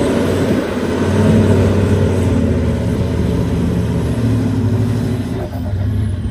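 A four-wheel-drive ute's engine running steadily under load as it tows a hybrid camper trailer through soft beach sand and drives past.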